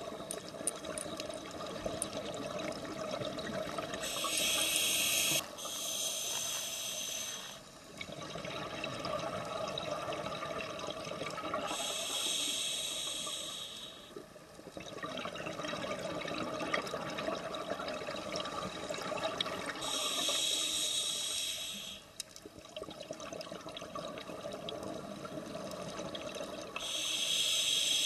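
Scuba diver breathing through a regulator underwater. A short hissing inhalation comes about every eight seconds, four in all, each followed by a long stretch of bubbling exhaust.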